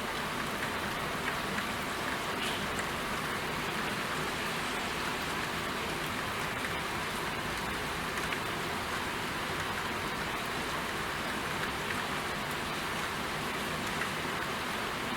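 Steady rain falling, an even hiss of many drops with scattered individual drop taps.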